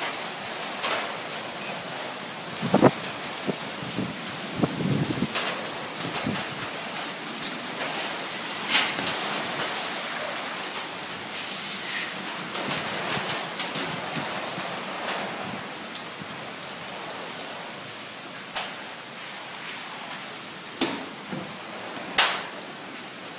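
Heavy thunderstorm rain pouring down, a steady hiss, with a few sharp short knocks scattered through it.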